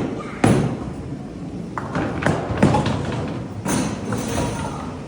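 A few dull thumps and knocks over a steady background din of distant voices.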